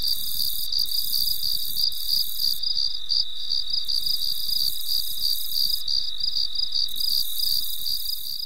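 Crickets chirping in a fast, even pulse, with a higher insect hiss above them that cuts out twice and comes back.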